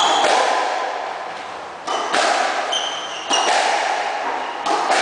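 Squash rally: the ball is struck and hits the court walls with sharp, echoing cracks about every second and a quarter. Brief high squeaks of shoes on the wooden floor come between the hits.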